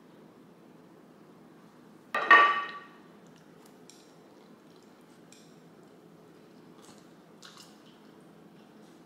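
A utensil clinks sharply against a dish about two seconds in, with a brief ringing tone that dies away within about half a second. A few faint small clicks of tableware follow.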